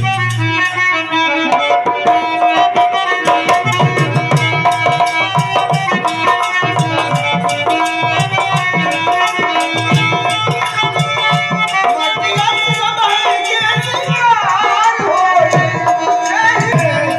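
Music of tabla drumming with a quick steady beat under held, sustained chords; a wavering, gliding melody line comes in about two-thirds of the way through.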